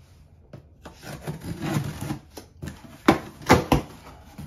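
Knife slicing the packing tape on a cardboard box with a scraping, rubbing sound. About three seconds in come three sharp loud rips as the cardboard flaps are pulled open.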